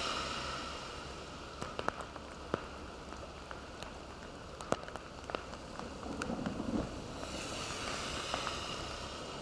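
Heavy rain falling: a steady hiss of rain with scattered sharp ticks of drops striking nearby surfaces, the hiss growing stronger about seven seconds in.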